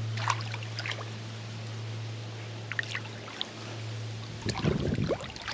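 Lake water splashing and sloshing as a large common carp is released by hand and swims off. There are a few separate splashes, the biggest near the end, over a steady low hum.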